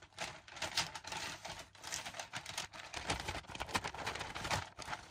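Cardboard shipping box being opened and crumpled brown paper packing pulled out and handled, with irregular crackling and rustling.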